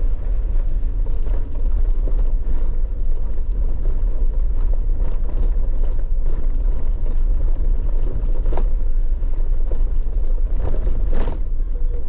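Off-road vehicle driving slowly over a bumpy dirt trail: a steady low rumble of engine and tyres, with scattered knocks and rattles. The two clearest knocks come about eight and a half and eleven seconds in.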